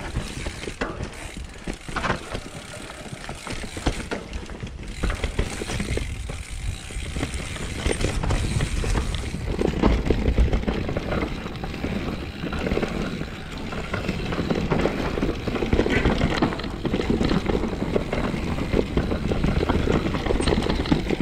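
Mountain bike riding fast down a rocky, rooty dirt trail: tyres rumbling over the ground, the bike rattling and clicking over bumps, with the rear hub's freewheel ratchet buzzing while coasting. The rumble grows heavier about a third of the way in.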